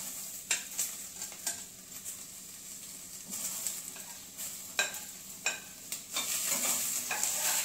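Chopped bell peppers and onions sizzling in a steel pan with a few drops of oil on a high flame, with a slotted steel spoon clicking against the plate and pan as the peppers are pushed in. The sizzle grows louder about six seconds in as the stirring begins.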